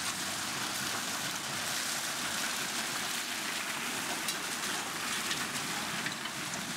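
Steady outdoor background hiss with no distinct engine note or other single event.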